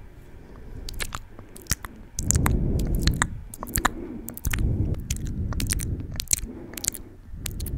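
Wet mouth sounds made right at a microphone: many quick clicks and smacks of the lips and tongue. Between them come stretches of low, muffled rumble, about two seconds in and again around four and a half seconds.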